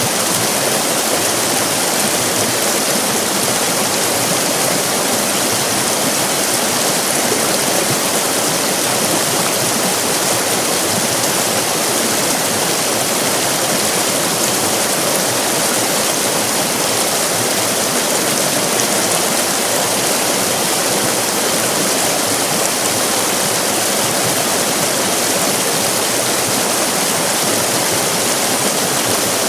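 River rapids: fast-flowing water rushing steadily, a dense, even hiss with no distinct splashes standing out.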